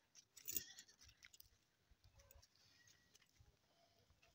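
Near silence, with a few faint clicks and rustles; the loudest is brief, about half a second in.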